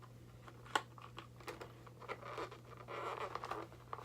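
Plastic toy packaging being handled: a sharp click about a second in, then scraping and crinkling of plastic as fasteners are worked into the tray's slots.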